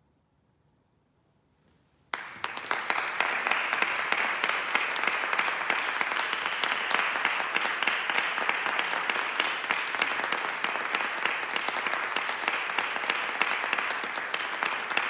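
About two seconds of near silence after the final note, then an audience suddenly breaks into steady applause.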